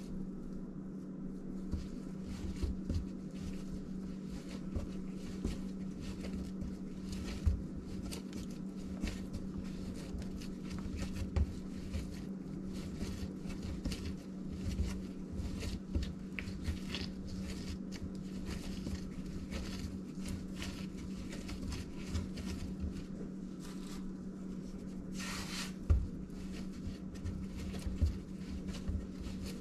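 Hands kneading pandesal dough on a silicone baking mat: soft, irregular thumps and squishes as the dough is pressed, folded and pushed down, over a steady low hum. Near the end there is a brief scraping hiss and one louder thump.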